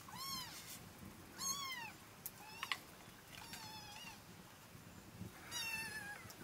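A cat meowing five times, in short calls that rise and fall in pitch.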